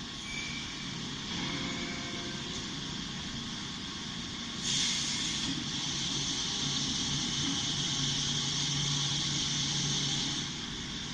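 Steady hiss and running noise from a working machine, the high-frequency PVC tarpaulin welding machine. A louder hiss comes in about five seconds in and holds, with a low hum joining near the end.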